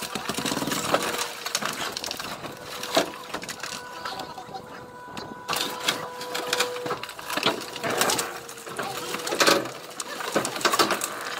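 Hydraulic car baler pressing its lid down onto a car, with a steady hum and whine from the machine. Irregular sharp cracks and creaks come from the car body crumpling under the press.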